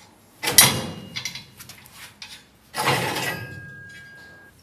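Steel bracket clanking against the square-tube arm of a car rotisserie: a sharp clank about half a second in, a few light taps, then a second clatter a little past halfway that leaves a thin metallic ring fading away.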